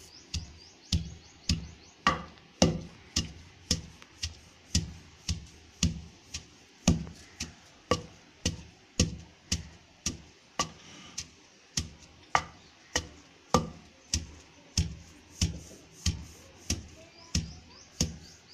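A wooden pestle pounding dried red chillies in a stone mortar (rolu), in steady regular strokes of nearly two a second. Each stroke is a dull thud with a sharp crack on top.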